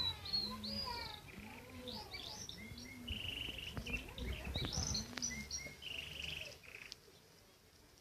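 Birds chirping in quick, high, sweeping notes over a steady series of low, rounded coos, typical of pigeons cooing. A few sharp clicks come near the middle, and the sound drops off near the end.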